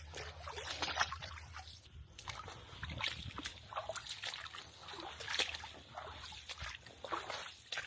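Hiking shoes wading through ankle-deep water: a splash and slosh with each step, in an uneven run of strides.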